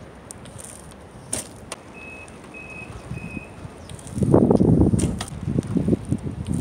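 A Tern Crest minivelo's tyres rumbling over rough concrete as the bike rolls close past, starting about four seconds in, with knocks from the bike. Earlier there are three short high beeps, evenly spaced.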